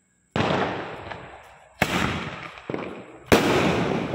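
Chotta Fancy small aerial shell fireworks going off: a sharp bang about a third of a second in, another about two seconds in, a smaller one just after, and the loudest near the end. Each bang trails off slowly.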